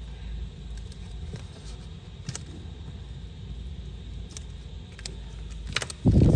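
Zippo lighter being handled: scattered sharp metallic clicks, then a much louder short knock about six seconds in.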